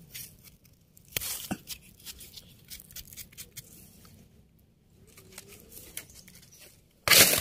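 Knife blade scraping and trimming soil off the firm stem of a freshly picked wild mushroom: short, scratchy scrapes and small crisp cuts, with a sudden louder rustling burst near the end.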